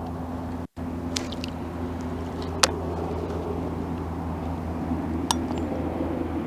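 A steady low engine hum made of several even tones, with three sharp clicks and light wet handling sounds over it.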